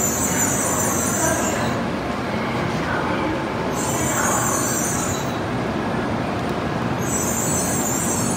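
An N700A Shinkansen train rolling slowly alongside the platform as it comes in to stop. A steady low rumble runs under a high hiss that comes and goes three times, about every three seconds.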